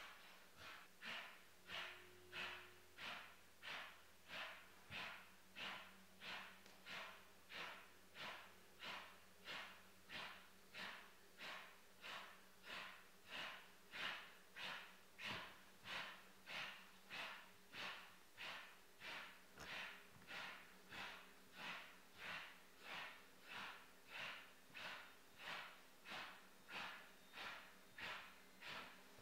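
Faint, rhythmic heavy panting from people, about three breaths every two seconds, kept evenly paced throughout.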